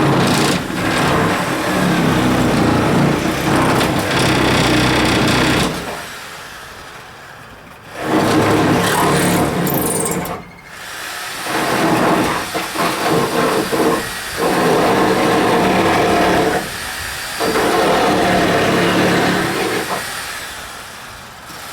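Handheld power tool working wood, run in repeated bursts of a few seconds that stop and start, with a longer pause about six seconds in.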